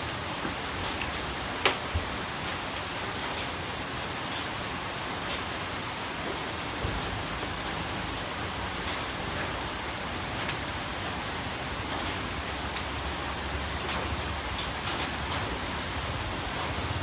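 Steady rain falling, with individual drops tapping sharply on a surface and one louder tap about a second and a half in.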